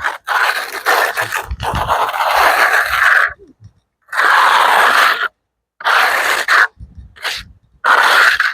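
Steel trowel scraping blacktop repair compound into cracks in an asphalt driveway: several scraping strokes separated by short pauses, the first about three seconds long and the later ones shorter.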